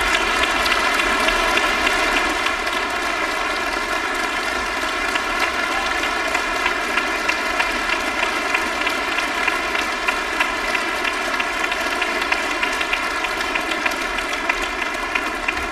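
A concert-hall audience applauding, with dense clapping that falls into a steady, regular beat in the second half.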